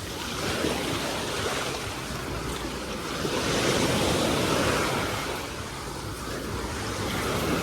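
Sea waves washing onto the beach, an even rushing surf that swells about halfway through and then eases.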